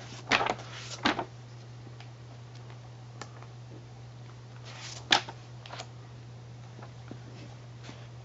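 Pages of a thick old book turned by hand: a few short paper flips and rustles, the sharpest about five seconds in, over a steady low hum.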